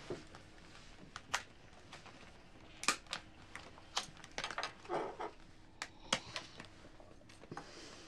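Chopsticks clicking and tapping against bowls and takeout containers as several people eat at a table: scattered light clicks at uneven intervals, a few sharper ones about three and six seconds in.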